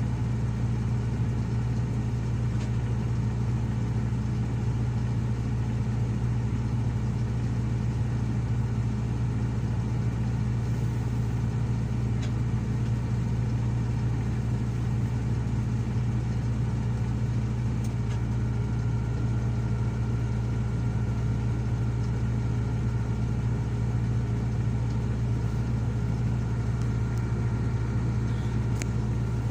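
Heavy diesel engine running at a steady speed, a low even drone with no revving or change in pitch.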